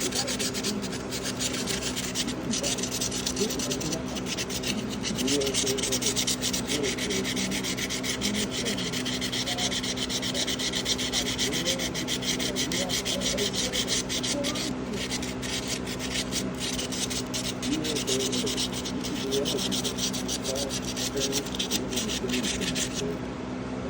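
Sandpaper scrubbing back and forth inside a pocket knife's handle against the brass liners: a continuous fast scratchy rasping that stops shortly before the end, over a steady low hum.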